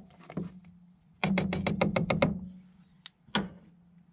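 Wooden spatula knocking against the rim of a stainless steel pot: a quick run of about eight sharp taps in about a second, then a single louder knock near the end.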